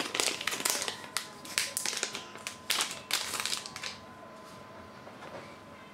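Metallised anti-static bag crinkling as an SSD is pulled out of it: a quick run of crackles that dies down after about four seconds.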